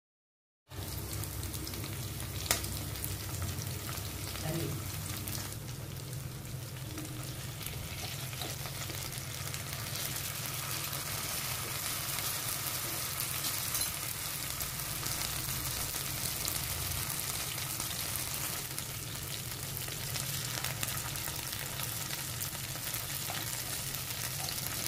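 Masala-coated sardines shallow-frying in hot oil in a nonstick pan: a steady sizzle that starts under a second in, with a sharp tap about two and a half seconds in and a spoon working among the fish as they are turned.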